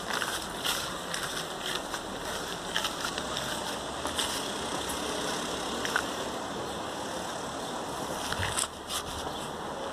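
Steady rushing noise of wind on the microphone, with scattered light clicks and knocks now and then.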